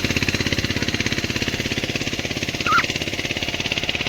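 A small engine running steadily with a fast, even pulse, with one brief high squeak about two-thirds of the way through.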